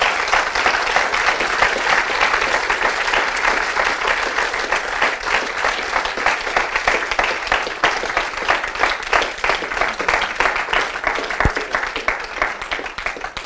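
Audience applauding: dense, steady clapping from many hands that dies away at the very end.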